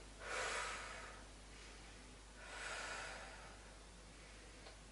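A woman breathing audibly and calmly while holding an abdominal Pilates hold: two soft breaths, one just after the start and one about two and a half seconds in.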